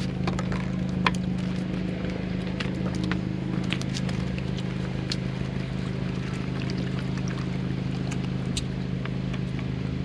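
Steady low mechanical hum of unchanging pitch, with scattered light clicks and taps over it.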